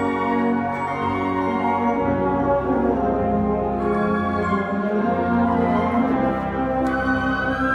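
Youth concert band of flutes, clarinets and brass playing music with sustained notes under a conductor.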